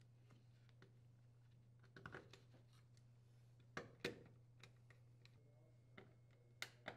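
A few faint clicks and taps of metal hardware and the power cord being handled while the range is wired, the loudest pair about four seconds in, over a low steady hum.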